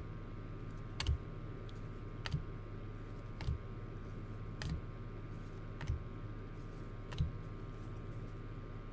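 Six soft clicks at an even pace, about one every 1.2 seconds, as baseball trading cards are flipped through one at a time, over a steady faint hum.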